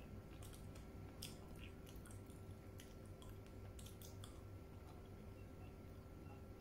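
Close-miked chewing of soft, sticky Ajwa dates: wet lip smacks and mouth clicks, several in the first four seconds, fewer toward the end.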